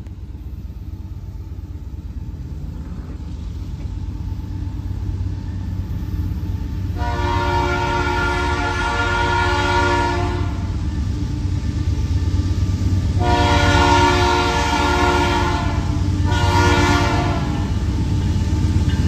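Canadian Pacific GE ES44AC diesel locomotive approaching and sounding its multi-note air horn for a grade crossing: two long blasts and a short one. Under the horn, the rumble of the engine and train grows steadily louder as it nears.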